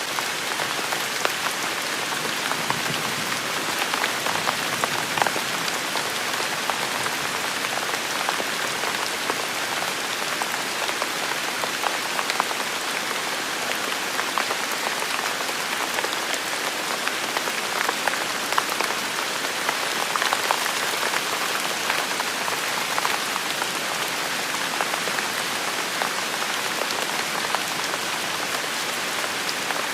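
Steady rain falling and pattering on hard surfaces, with many individual drops ticking close by.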